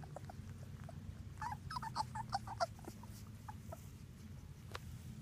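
Three-week-old Labrador puppies squeaking and whimpering in short, high little cries, a quick flurry of them about one and a half to three seconds in, with a single sharp click near the end.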